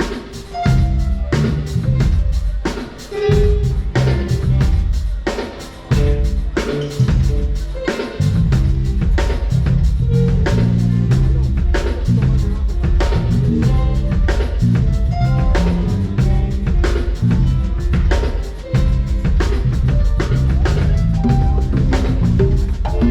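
Live band music with a drum kit, bass drum and snare keeping a steady beat under bass and other pitched instruments, fuller from about eight seconds in.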